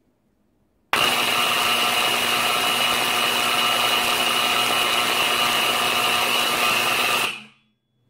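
1971 Novar Nitegard portable burglar alarm's siren (model MP 120-S) going off: a loud, unwavering blare that starts abruptly about a second in, holds at a fixed pitch for about six seconds and dies away near the end. It is the unit's high-decibel alarm, set off by noise with the siren switched on.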